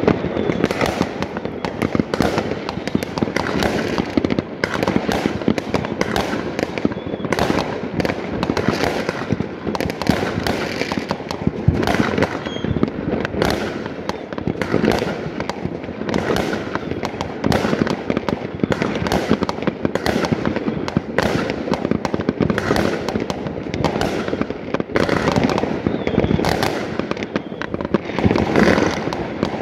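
Many fireworks going off at once: a continuous barrage of overlapping bangs and crackles with no pause.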